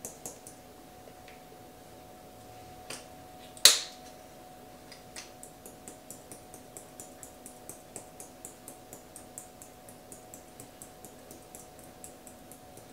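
Hand pepper mill being twisted to grind pepper, its grinder ticking about three to four times a second through the second half. One sharp click before that, just under four seconds in, is the loudest sound.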